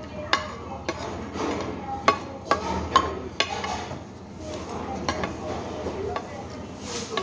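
Chopsticks and a metal spoon clinking and scraping against a large soup bowl while eating, with sharp clinks at irregular intervals.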